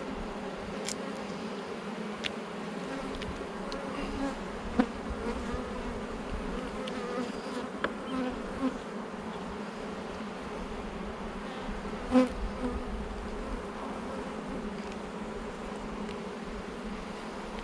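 Honeybee colony buzzing steadily around an opened hive, a massed hum with a few light clicks and knocks from the frames being handled.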